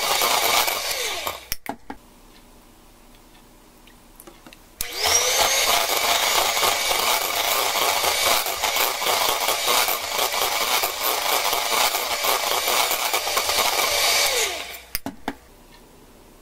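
Electric hand mixer beating a thick cream cheese and chocolate batter in a metal bowl. It runs for about the first second, then winds down and stops with a click. About five seconds in it starts again, rising to speed, runs steadily for about ten seconds, and winds down near the end.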